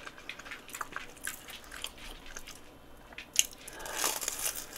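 Chewing a crispy breadcrumb-coated deep-fried croquette with small crunches, then a crunchy bite into its crust near the end.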